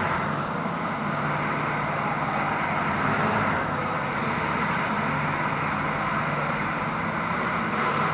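Kubota D905 three-cylinder diesel engine running steadily at a constant speed.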